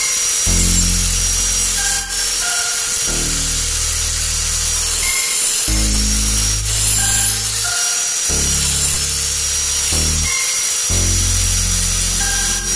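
Background music with sustained low chords that change every second or two.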